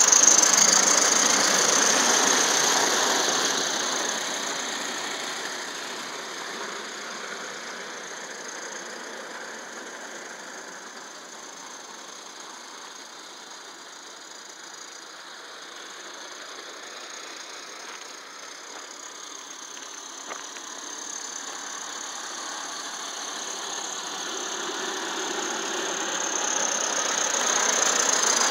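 Accucraft Emma live-steam garden-scale locomotive running, its exhaust and steam hiss loudest as it passes close at the start. The sound fades as it runs away across the layout and grows again as it comes back near the end.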